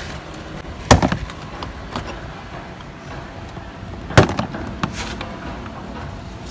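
Two sharp plastic snaps about three seconds apart, with a few lighter clicks and knocks: the retaining clips of a car door's plastic trim panel popping loose as it is pulled off from below.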